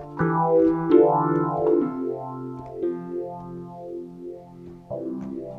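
Yamaha MX49 keyboard playing an electric piano voice: a few held chords that pulse with a slow wobble, with a fresh chord struck near the start, about a second in and near the end.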